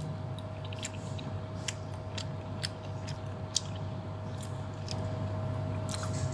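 A metal fork clicking and scraping on a plastic-wrapped plate as it cuts and spears pieces of soft rice noodle roll. The clicks are irregular, the sharpest a little past halfway, over a steady low hum.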